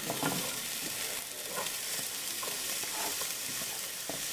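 Diced poblano peppers sizzling steadily in hot olive oil in a pan, with a few light clicks.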